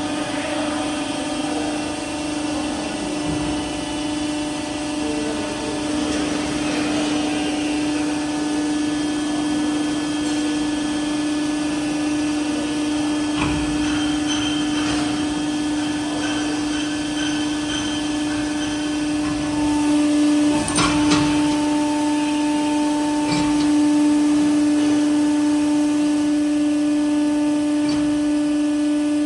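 Hydraulic power unit on a cylinder test bench running: electric motor and pump with a steady hum and whine, working a telescopic hydraulic cylinder. It gets somewhat louder about two-thirds of the way through, with a few short metallic clicks and knocks.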